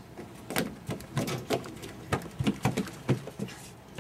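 Children's running footsteps on wooden deck boards: an irregular run of quick knocks, thickest through the middle.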